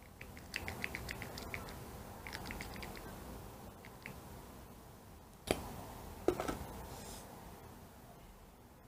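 Light plastic clicks of a liquid foundation bottle's pump being pressed to dispense onto the back of a hand: a run of quick small ticks, then two sharper clicks about five and a half and six and a half seconds in.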